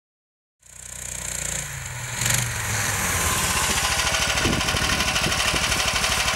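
Homemade snowmobile's 18-horsepower Sharmax walk-behind-tractor engine, fitted with a DC CDI ignition and a PZ30 carburettor, running under load as the machine drives through deep snow. It comes in about half a second in, climbs in revs over the next couple of seconds, then holds at high revs with a fast, even pulse.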